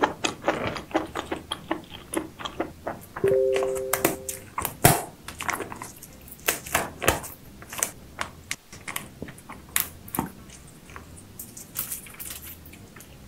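Close-up seafood eating sounds: shells cracking and crunching in a rapid run of sharp clicks and cracks that thin out in the last few seconds. About three seconds in, a two-note chime sounds once for about a second.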